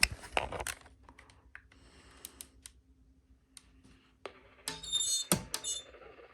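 A broadcast voice cuts off abruptly, then scattered sharp clicks and taps sound over a faint steady hum, with a quick cluster of clicks about five seconds in.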